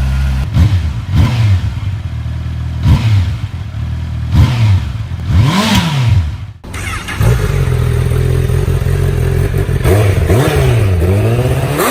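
Honda CBR motorcycle engines revved with short throttle blips from idle, each rev rising sharply and falling back. Partway through, the sound cuts to a second bike idling, which then blips its throttle again.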